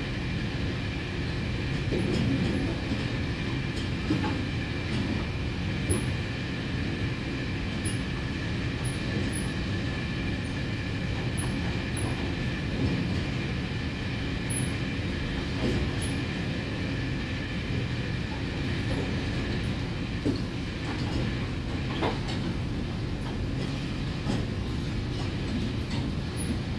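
Cabin sound of an electric express train running at speed through a tunnel: a steady rumble of wheels on rail with a thin, steady high whine and a few light clicks.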